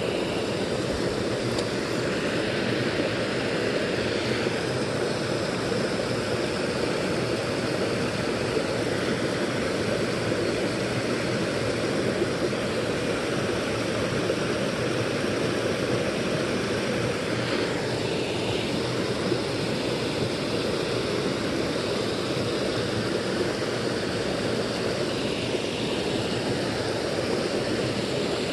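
A small creek cascade, with water spilling over a low ledge into a pool, making a steady rushing sound.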